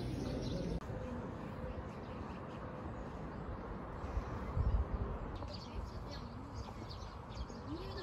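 Birds chirping in short calls over outdoor background noise, the calls coming more often in the second half. A brief low rumble sounds about halfway through.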